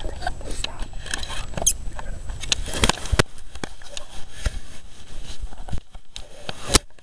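Close rustling and scraping with many irregular sharp clicks, a few louder ones about three seconds in and near the end.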